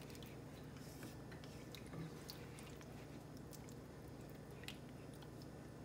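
Silicone spatula stirring shrimp in curry gravy in a pot, soft and faint wet squelching with a few light ticks, over a low steady hum.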